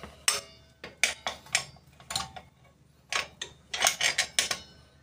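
About a dozen irregular metallic clinks and knocks, a few ringing briefly, from metal motorcycle wheel-hub parts being handled and fitted.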